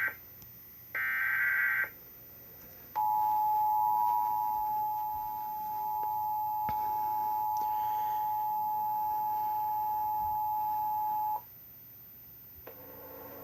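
An Emergency Alert System SAME digital data burst, a short warbling screech, ends about a second in. It is followed by the EAS two-tone attention signal, 853 and 960 Hz sounding together, which holds steady for about eight seconds and then cuts off abruptly. This is the alert header and attention tone of an EAS relay retransmitting the watch.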